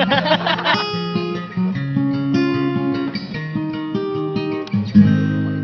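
Background music: a plucked guitar melody over held bass notes, with a loud new chord struck about five seconds in.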